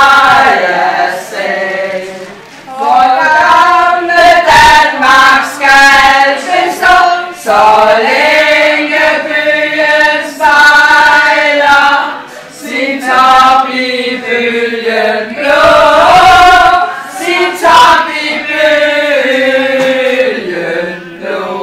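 A group of women singing a song together, unaccompanied, in phrases with short breaks for breath.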